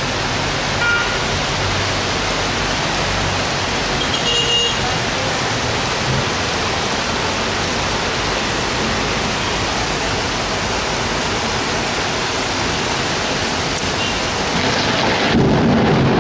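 Heavy tropical rain pouring steadily. About fifteen seconds in, a deep rumble of thunder swells up.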